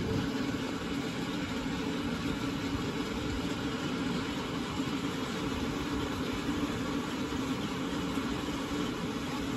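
A steady mechanical hum with an even, noisy rumble underneath. The level holds constant, with no sudden swells.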